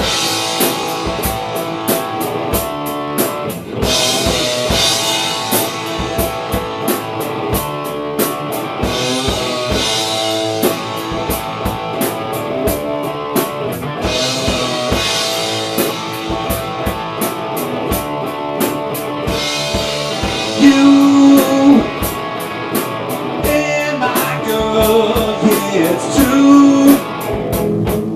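Rock band playing live: electric guitar over a drum kit in a steady beat, with long stretches of cymbal wash every few seconds.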